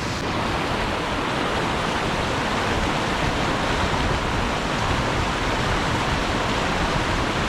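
Steady rush of flowing brook water.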